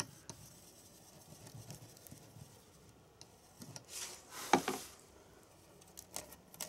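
Quiet room tone, then a brief rustle and a single sharp knock about four and a half seconds in, as a soldering iron is set down on a wooden board. A few faint clicks from handling 3D-printed PLA parts follow.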